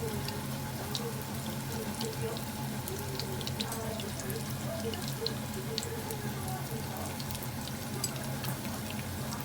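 Chicken thighs frying in hot oil: a steady sizzle with scattered small crackles and pops, over a steady low hum.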